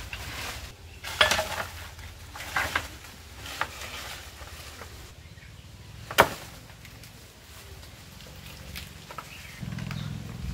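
Outdoor handling sounds of a ladder and banana plants: scattered knocks and leaf rustles over a low steady rumble, with one sharp crack about six seconds in while a bunch of green bananas is being cut from the plant.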